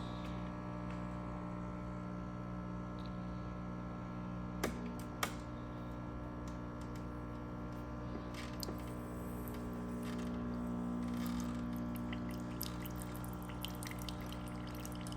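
JURA Impressa C9 super-automatic espresso machine running its rinse cycle: a steady pump hum as water is pushed through and out of the spout. Two sharp clicks, half a second apart, come about five seconds in.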